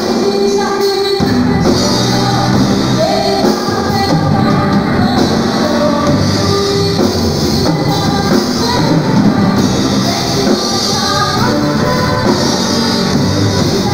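Live band music with a woman singing into a microphone, backed by electric guitar, bass guitar, keyboard and drum kit.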